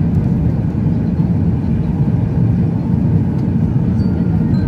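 Steady low rumble of a Boeing 737-800's engines and airflow, heard inside the passenger cabin in flight.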